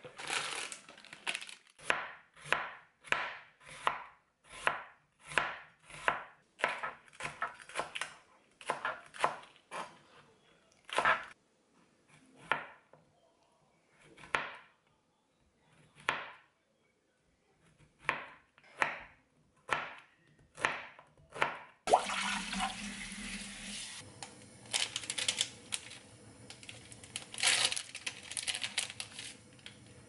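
Kitchen knife slicing Korean zucchini and green onion on a plastic cutting board, one stroke at a time at about one to two a second, with a few pauses in the middle. About 22 seconds in the chopping stops and a steady rushing sound with a few clatters takes over.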